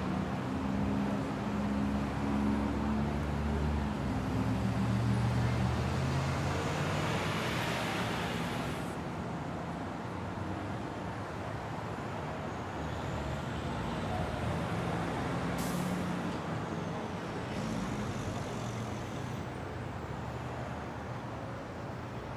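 City street traffic: a heavy vehicle's engine runs low over the first few seconds, then a hiss builds and cuts off sharply about nine seconds in, with one sharp click later on.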